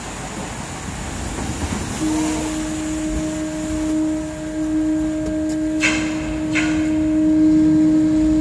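A ship's horn sounds one long, steady low note from about two seconds in, over a rush of noise that grows louder as the launched hull moves into the water. Two brief loud clatters come about six seconds in.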